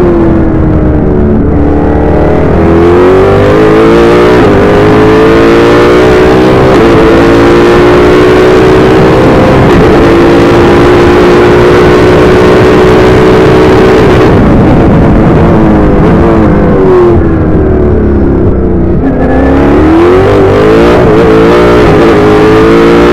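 Onboard sound of an AF01 formula car's engine at full racing speed: revs climbing through an upshift, then held high and level on a long straight in fifth gear. About fifteen seconds in the revs fall in steps as it brakes and downshifts into a slow second-gear corner, then climb again as it accelerates out near the end.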